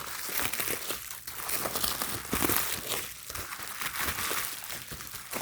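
Plastic packaging crinkling and rustling irregularly as it is handled and unwrapped from a replacement glass digitizer screen.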